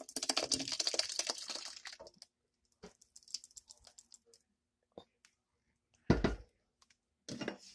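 Thick blended tomato sauce pouring and splattering from a blender jar into a stainless steel pot for about two seconds. Then scattered small clicks and one dull thump about six seconds in.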